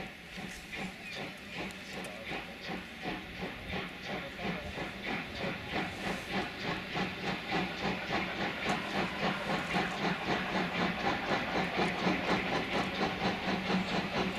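Class 78 steam tank locomotive 78 468 working under steam, its exhaust chuffing in a steady rhythm of about two to three beats a second. The beats grow louder as it approaches.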